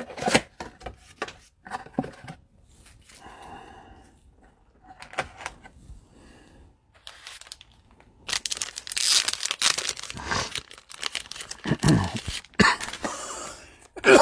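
Handling noise of packaging being worked by hand: scattered clicks and rustles at first, then a busy stretch of crinkling and tearing from about halfway on, loudest near the end.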